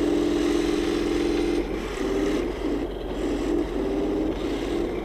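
Simulated tank-engine sound from the Henglong Walker Bulldog RC tank's onboard sound unit: a steady hum that, from about a second and a half in, breaks up and jumps up and down in pitch.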